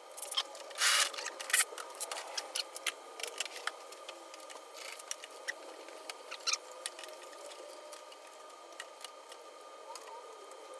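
Light clicks, taps and small squeaks of hands working with small parts and tools, with a short hiss about a second in.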